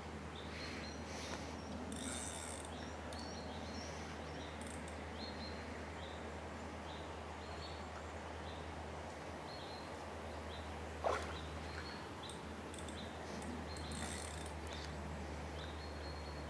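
Faint outdoor ambience: a steady low hum with short high chirps repeating throughout, from birds or insects. There are a few brief high hissy bursts and one short, louder call about eleven seconds in.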